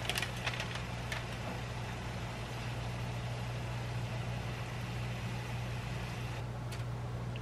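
A metal spoon clinks lightly a few times in the first second as it scoops ground beef and rice filling into halved bell peppers. Under it, a steady low mechanical hum and hiss continues throughout.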